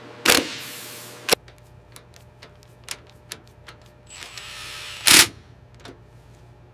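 Power tools on bolts and fittings: a short loud blast about a third of a second in and another about five seconds in, with a faint hiss leading into the second and scattered light clicks between.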